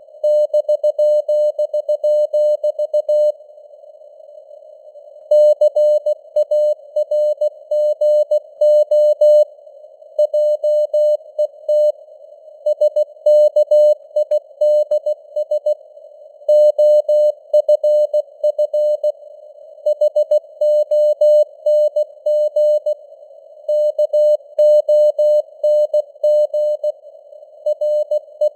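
Morse code (CW) sent at 16 words per minute as a steady beeping tone keyed in dots and dashes, over a band of simulated radio static hiss. There is a pause of about two seconds a few seconds in, and short gaps between words.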